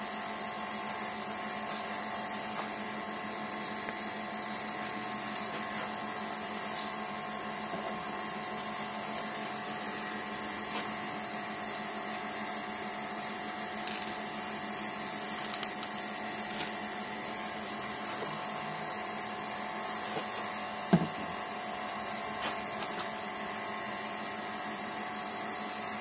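The A/C service station's vacuum pump runs with a steady, even hum, evacuating the car's air-conditioning system. A few brief clicks and scrapes come about halfway through as a screwdriver works at the plastic cap of the UV dye bottle.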